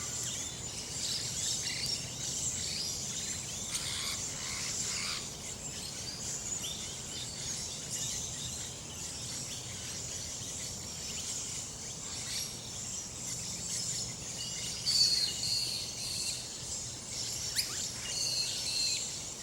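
Many Australian birds chirping and calling together over a steady high hiss, with sharper repeated whistled notes standing out about three-quarters of the way through and again near the end. The uploader takes the singers for king parrots and rainbow lorikeets among others.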